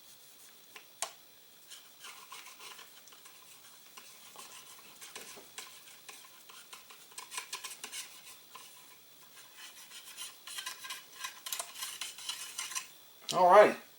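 Cleaning rod with an oiled patch being pushed and spun down the long barrel of a Rossi Circuit Judge revolving rifle: faint, irregular scraping and rubbing with small clicks, busier in the second half.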